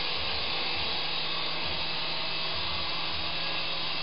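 Syma S107 toy RC helicopter hovering: a steady electric whir from its small motors and coaxial rotors.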